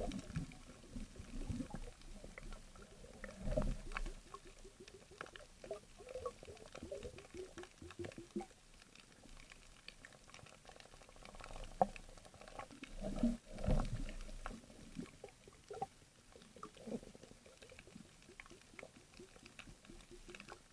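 Faint underwater reef sound picked up by a submerged camera: a steady crackle of many small clicks, typical of snapping shrimp, with two louder low whooshes of water movement about 3.5 and 13.5 seconds in.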